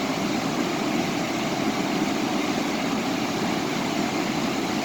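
Steady rush of river water pouring over a waterfall, an even unbroken noise.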